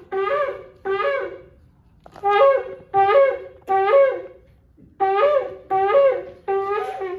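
Short two-note horn blasts, each stepping up from a lower note to a higher one: two blasts, a pause, three blasts, a pause, then three more. They are played as one of the watchmen's trumpet calls.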